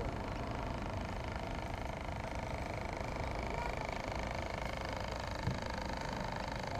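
A small motor's steady whine, held at several even pitches over a low rumble of wind on the microphone, with one short knock about five and a half seconds in.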